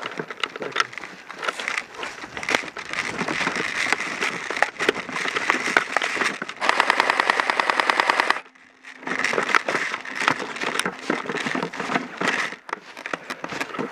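Footsteps crunching through snow. A little past the middle, an airsoft M4A1 electric rifle fires one rapid full-auto burst of about two seconds, with a steady gearbox whir under the shots.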